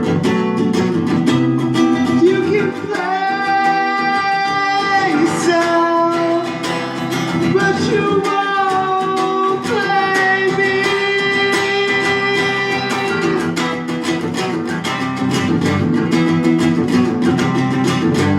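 Acoustic guitar played with fast picked and strummed notes under a singing voice that holds long sustained notes, at the close of a live song.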